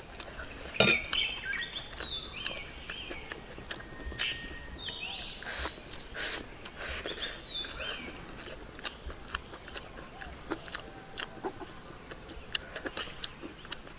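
Eating sounds: a spoon and chopsticks clicking against a ceramic bowl, with a sharp clink about a second in, and chewing. Under them runs a steady high-pitched insect drone, with short bird chirps in the first half.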